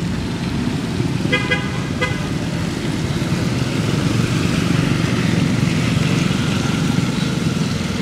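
Road traffic: a motor vehicle running with a steady low rumble that grows a little louder mid-way, and two short horn toots about one and a half and two seconds in.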